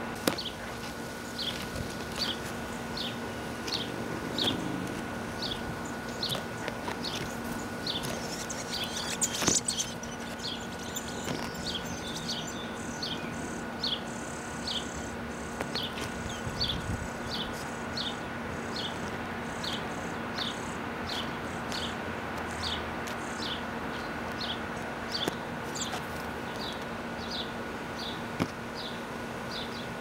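A bird repeating a short, falling chirp at an even pace, about three every two seconds, over a steady hum.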